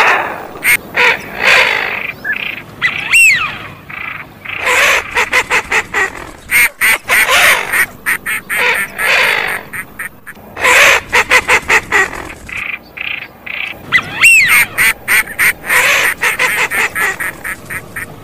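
Northern shoveler duck calls: fast runs of short clipped notes mixed with rasping quacks, and a brief high squeal twice. The sequence comes round again after about eleven seconds, as a looped call recording does.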